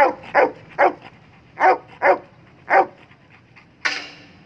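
A Bully Gultair dog barking: six loud barks in about three seconds, some in quick pairs, then one harsher, noisier sound about four seconds in.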